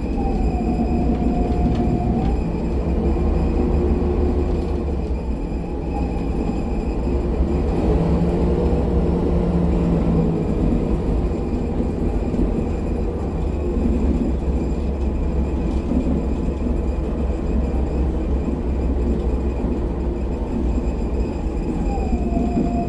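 Jelcz M121MB city bus heard from inside the passenger cabin while driving: steady low engine and road rumble, with a faint whine that dips in pitch near the start and again near the end.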